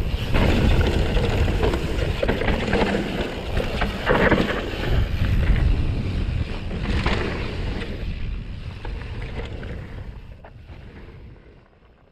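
Wind rushing over an action camera's microphone as a mountain bike rolls fast down a dirt singletrack, with tyre noise and a few sharp knocks and rattles from the bike over bumps. The sound fades out over the last few seconds.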